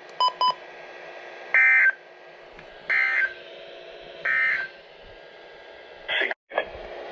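Emergency Alert System end-of-message signal: three short, identical buzzy digital data bursts about 1.3 s apart, marking the end of the severe thunderstorm warning. They follow two brief beeps, and a short click and dropout come near the end.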